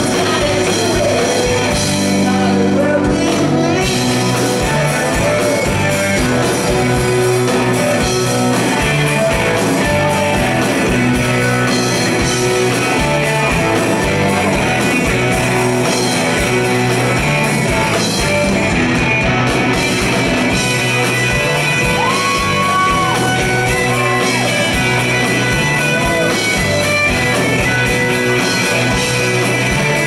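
Rock band playing live, with electric guitars, bass guitar, drums and singing, heard loud and continuous from the audience.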